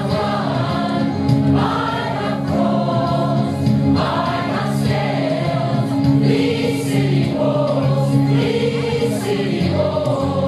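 A mixed choir of women and men singing together, the higher voices moving from note to note over a steady low held chord.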